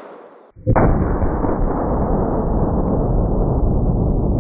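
The fading echo of a .500 S&W Magnum revolver shot, then, about half a second in, a deep, drawn-out rumble that does not die away: the shot and the 6-pound can of white gravy bursting, played back slowed down.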